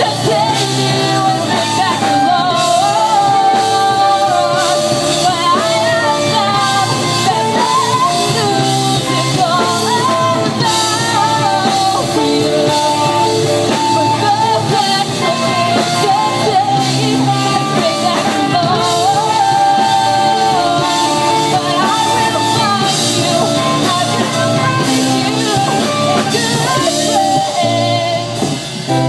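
Rock band playing live, loud and steady: a singer over drums and electric guitar, with a short dip in loudness near the end.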